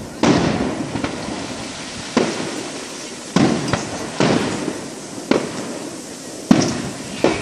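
Aerial firework shells bursting: about seven sharp bangs at uneven intervals, each dying away over about a second, the loudest near the end.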